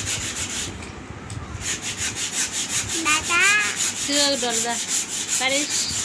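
Sandpaper rubbed by hand back and forth along a wooden plank, about five quick strokes a second, with a short pause about a second in. From about three seconds in, a few short pitched calls with gliding pitch sound over the sanding.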